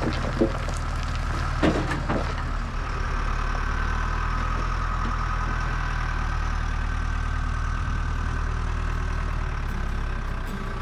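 Heavy diesel engine of an earthmoving machine running steadily, with a few sharp knocks in the first two seconds.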